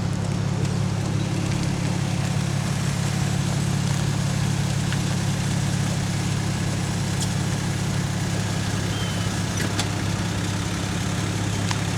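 Car engine running steadily, heard from inside the cabin as a constant low hum.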